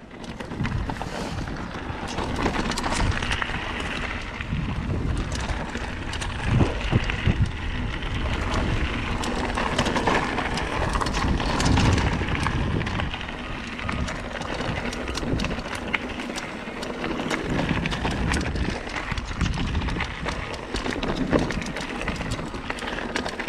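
Mountain bike riding down a dirt and rock trail: tyres rolling and the bike clattering with many small knocks, and wind buffeting the microphone.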